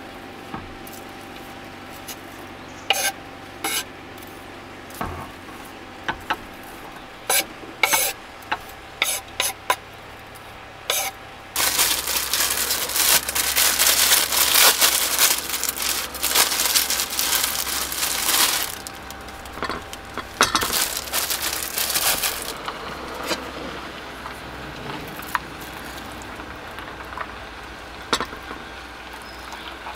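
Scattered light clicks and knocks of cookware and utensils. Then, about a third of the way in, a plastic bag of sliced bread crinkles loudly for several seconds as the bread is taken out. After that comes a quieter scraping as a wooden spoon moves filling from a small frying pan onto bread in a hot sandwich maker.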